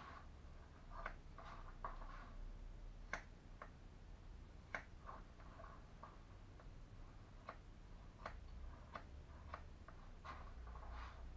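Scissors cutting long hair: a series of faint, irregular snips, roughly one or two a second.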